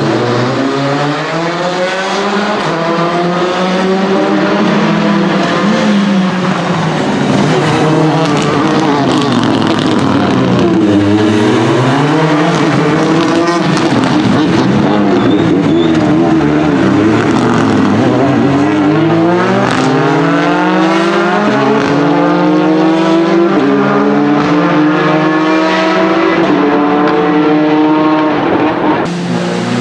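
Renault Clio N5 rally car engine revving hard, its pitch climbing through the gears and dropping again and again at the shifts and lifts, at full competition pace.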